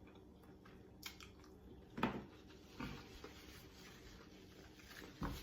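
Chewing on fried chicken wings, mostly faint, with a few short, louder eating sounds, the loudest about two seconds in.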